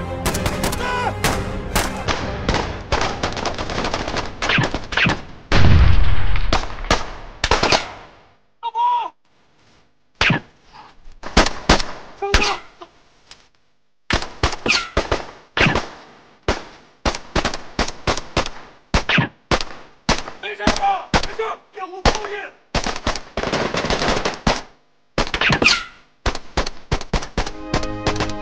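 Assault rifle gunfire in a night firefight: rapid bursts and single shots, with a heavy low boom about six seconds in. There is a short lull around nine seconds, then the bursts resume.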